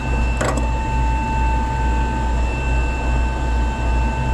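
Steady low hum of running machinery with several constant high-pitched whines over it. A short clatter of tools and wires being handled comes about half a second in.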